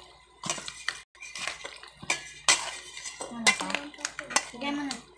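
Metal spoon clinking and scraping against a stainless steel mixing bowl in a run of separate knocks, stirring chopped pork with mayonnaise.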